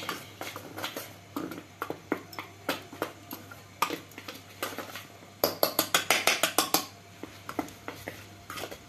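Wire whisk stirring dry gram flour in a stainless-steel bowl, its wires ticking against the bowl's side. Partway through comes a quick run of rapid ticks.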